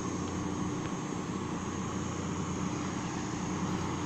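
Steady low drone of background noise with a faint constant hum, unchanging throughout.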